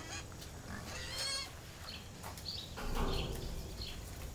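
Goat bleating: a short, wavering call about a second in, then a louder, rougher sound around three seconds in.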